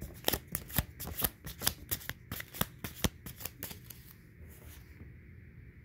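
A deck of Uno game cards being shuffled by hand: a quick run of sharp card snaps, about five or six a second, that dies away about three and a half seconds in.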